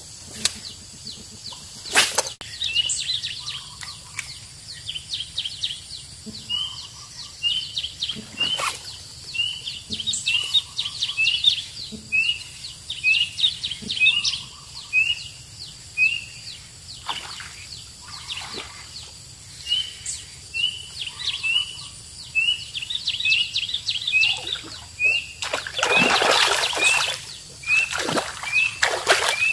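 A bird repeats a short rising chirp about twice a second, with a few sharp clicks. Near the end a snakehead strikes the surface frog lure with a splashing burst.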